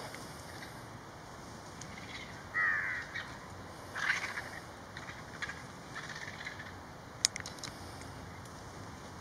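Vultures squabbling over a carcass, giving short harsh rasping calls, the loudest about two and a half and four seconds in, with a few fainter ones after. A single sharp click comes about seven seconds in.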